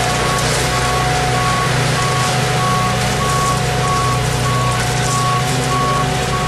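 A vehicle's backup alarm beeps at an even pace, about one and a half beeps a second, over the steady drone of running engines.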